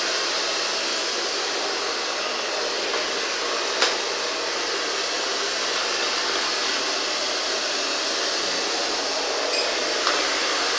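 GRUNDIG VCR 2330 robot vacuum cleaner running, a steady whir of its suction motor and brushes, with a single sharp click about four seconds in.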